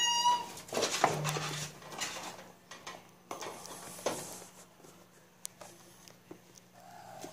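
A kitten gives one short, high mew right at the start. Then kittens scrabble about a wire cage with a plastic floor tray, making scattered light clicks, knocks and rustles.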